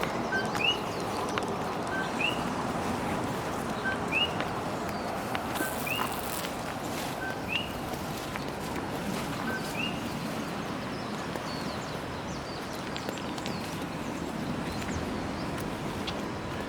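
A bird calls over and over, each call a short note followed by a quick rising whistle, about six times at roughly one-and-a-half-second intervals, stopping some ten seconds in. Under it runs a steady rushing noise.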